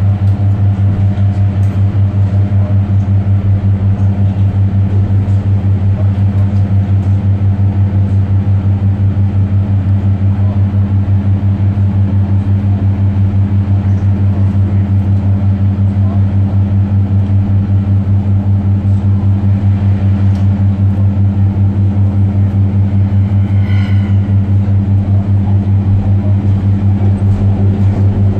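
Class 142 Pacer railbus running, heard from inside by the doors. Its underfloor diesel engine makes a steady, loud low drone with a fast, even pulsing. There is a brief high squeal near the end.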